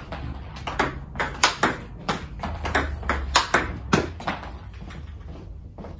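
Table tennis rally: the ball clicking off paddles, one faced with Xiom Omega VII China Guang rubber, and bouncing on the table in quick, uneven succession. The clicks stop about four and a half seconds in.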